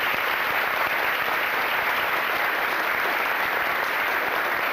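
Audience applauding: steady, dense clapping of a roomful of people.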